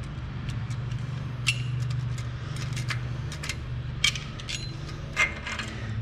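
Light metallic clicks and clinks as a steel pick works against the parts inside a 1995 Ford F-150's 4x4 front hub, with a few sharper clinks about a second and a half in, at about four seconds and just after five seconds.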